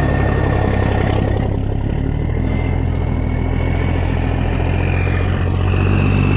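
An engine running steadily with a low hum, under a thin high whine that slowly rises in pitch.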